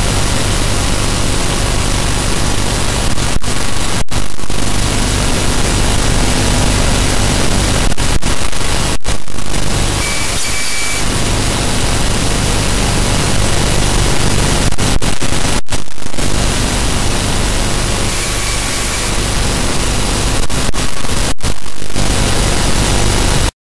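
Loud, steady static hiss with a low hum beneath it, cutting out for an instant four times: recording noise on the soundtrack of an operating-microscope surgery clip.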